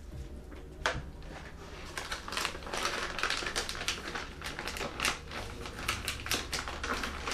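Crinkling and rustling of a plastic vacuum-seal bag as brisket is stuffed into it by gloved hands. It comes as a fast, irregular crackle that starts about two seconds in, after a single sharp click about a second in.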